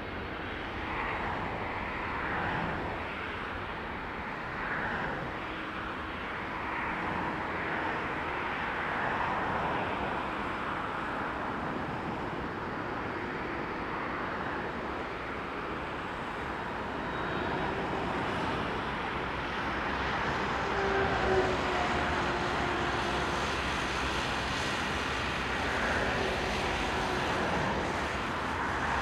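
Jet engines of a Boeing 767-300ER airliner running with a steady, wavering rush, and a few faint whining tones coming through in the second half.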